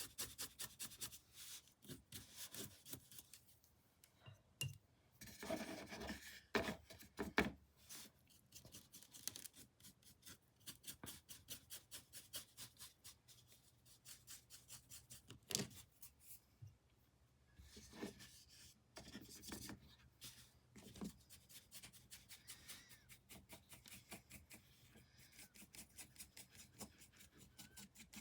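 Paintbrush scrubbing back and forth over canvas in quick, faint, repeated strokes, with a few louder knocks and rustles in between.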